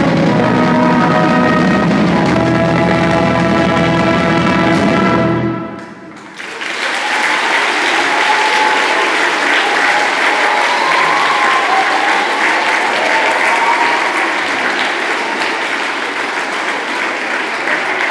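A school orchestra of strings, brass, guitars and drums holds its final chord, which stops about five and a half seconds in. A second later a large audience of schoolchildren breaks into steady applause.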